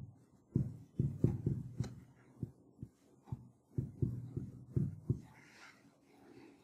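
Marker writing on a whiteboard: a run of soft, irregular taps and knocks as the strokes are drawn, with faint scratching, stopping about five seconds in.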